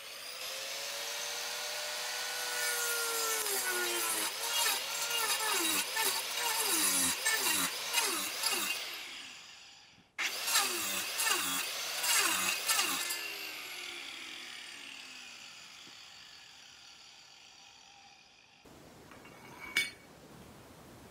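Corded angle grinder cutting a slot into a wooden board: the motor whine sags in pitch again and again as the disc bites into the wood, in two runs broken off suddenly about halfway. After the second run the grinder winds down slowly.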